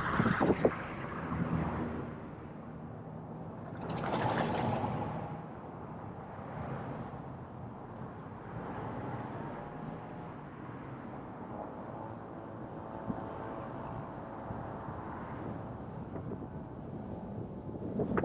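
Car driving on the road: steady tyre and wind noise with a low engine hum, swelling louder for about a second around four seconds in.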